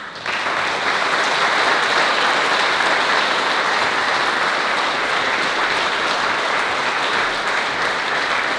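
Audience applauding, breaking out suddenly and going on steadily.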